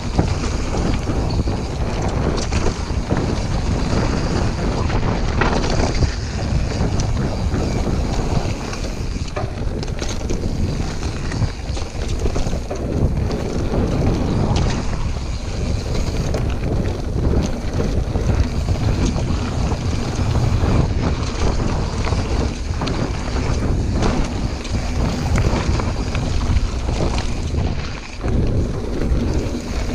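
Wind rushing over a chest-mounted action camera's microphone while a full-suspension mountain bike (YT Jeffsy) rides fast downhill, its tyres rolling over dirt and gravel and the frame and drivetrain clattering with frequent sharp knocks over bumps.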